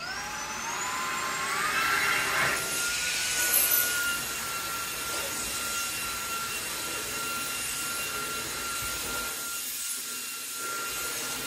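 Halostar cordless stick vacuum switched on: its motor whines up in pitch over about a second and a half, then runs steadily with a high whine over rushing air as it is pushed across a rug.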